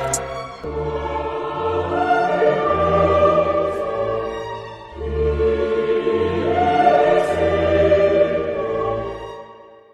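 Background music: held chords over slow, deep bass notes, dipping briefly about halfway through and fading out near the end.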